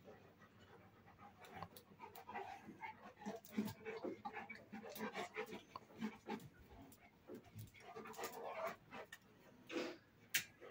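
Two large dogs panting and chewing at close range: a quick, irregular run of soft breaths and mouth clicks.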